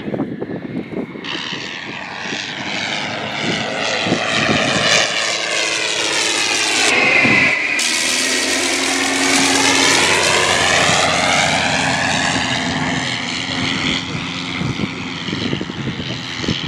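Engine and propeller of a 1918 Thomas Morse S4-B biplane in flight, making a low flyby. The sound swells as it comes in, is loudest as it passes close overhead about halfway through, and the pitch drops as it goes by. It then fades as the plane flies away.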